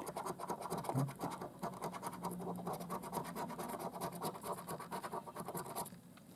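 A coin scraping the silver coating off a £2 scratch card in quick, rapid strokes, which stop abruptly near the end.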